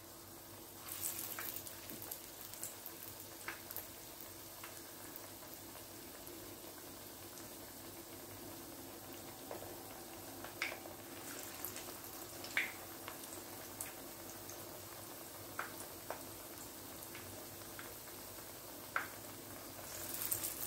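Falafel balls deep-frying in hot oil: a faint steady sizzle with scattered pops and crackles.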